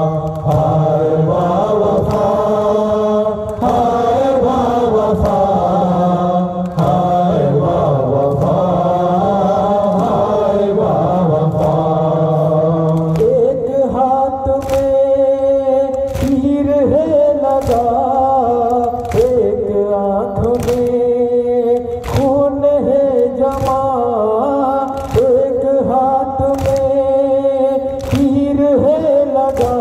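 A group of men chanting a Shia lament (noha) together in long held notes, led by solo voices on microphones. About halfway through, steady chest-beating (matam) strikes join in, a little more than one a second, keeping time with the chant.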